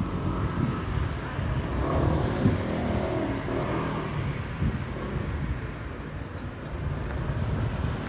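Road traffic noise over a steady low rumble, with a vehicle passing about two to three seconds in.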